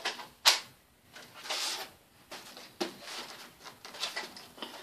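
Plastic airsoft M4 BB gun being handled while a part is fitted onto it: a sharp click about half a second in, a brief rustle, then a run of small plastic clicks and rattles.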